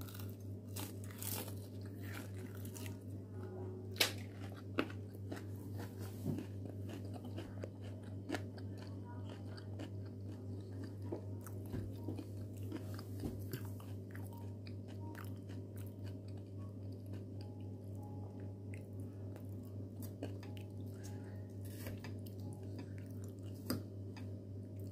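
Close-up chewing and crunching of crispy breaded fried shrimp and salad, with sharper crunches about four to six seconds in. A steady low hum runs underneath.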